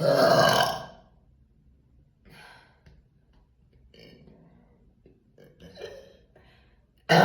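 A woman's loud burp lasting about a second at the start, then a few faint short sounds, and another loud burp beginning right at the end.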